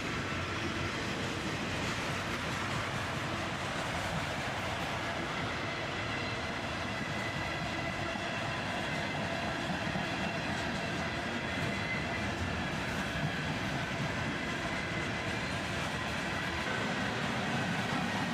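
Freight cars of a passing mixed manifest train rolling by on the rails, a steady rumble and rattle of wheels on track with faint high ringing tones above it.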